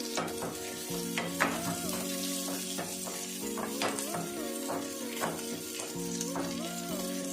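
Onion and curry leaves sizzling in hot coconut oil in a pan, with a spoon stirring and clinking against the pan several times. Soft background music plays along.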